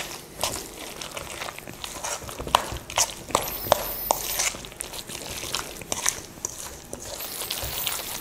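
A spoon stirring pakora batter of shredded vegetables, flour and water in a stainless steel bowl: irregular clicks and scrapes of the spoon against the metal, with wet, crunchy mixing noise.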